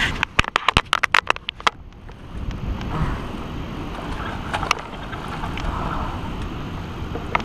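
Fishing reel's drag clicker giving line in a quick, irregular burst of about ten sharp clicks as the hooked catfish pulls near the boat, followed by steady wind and water noise.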